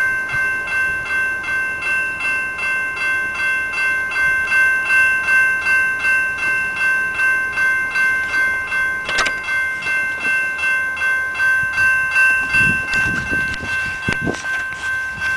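Railroad grade-crossing warning bell ringing continuously in a fast, even rhythm, a ringing tone repeated over and over. It sounds with the crossing gates down, the signal that a train is approaching.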